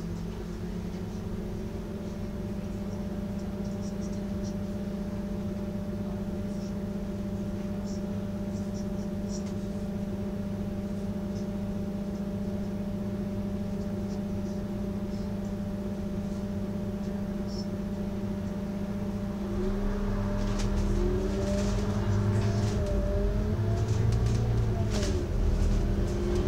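Bus engine idling steadily, heard from inside the passenger cabin while the bus waits in traffic. About 20 seconds in it grows louder and its note rises and shifts as the bus pulls away.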